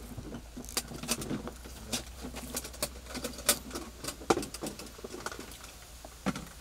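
Irregular clicks, taps and light clatter of small items being handled in plastic crates, about a dozen sharp knocks at uneven intervals.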